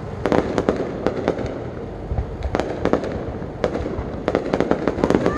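Fireworks display: aerial shells launching and bursting in quick succession, many sharp bangs at an irregular pace of several a second.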